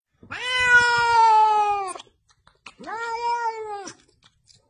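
A domestic cat meowing twice: a long meow of nearly two seconds that drops in pitch at the end, then a shorter meow that rises and falls.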